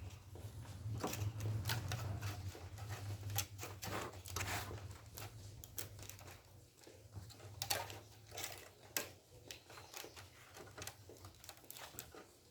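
Irregular clicks, taps and light rattling of hands fitting a defrost heater element onto a refrigerator's tube-type evaporator plate. A low hum runs under the first half.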